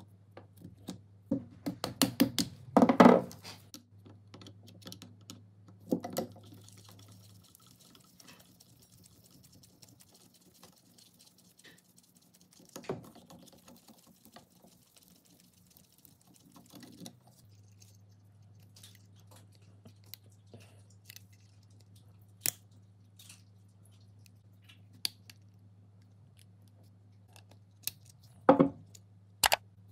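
A screwdriver and small metal parts clicking and clinking against the metal body and switch housing of a 1927 Black & Decker electric drill as it is taken apart by hand. The clicks come in scattered bursts, a quick run a couple of seconds in and another near the end, over a faint low hum that drops out for a while in the middle.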